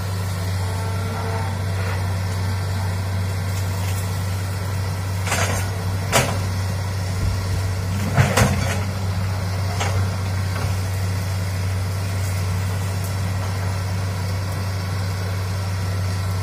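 Hitachi crawler excavator's diesel engine running steadily with a deep drone. A few sharp cracks and knocks stand out between about five and ten seconds in as the arm works in the trees.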